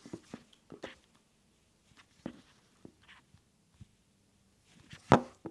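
Light clicks and small knocks of a RODE Wireless GO clip-on transmitter being handled and propped up on a tabletop, with one sharper knock about five seconds in.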